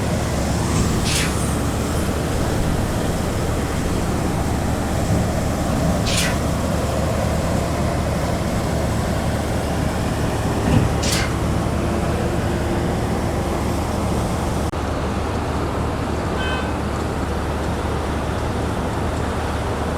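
Concrete pump truck's heavy diesel engine running steadily under load during a pour, a dense low rumble with a few brief sharp clicks.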